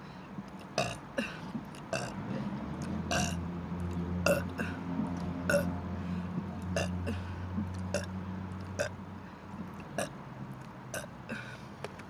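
A person burping, with one long, low burp lasting about six seconds in the middle, among many short, sharp clicking sounds.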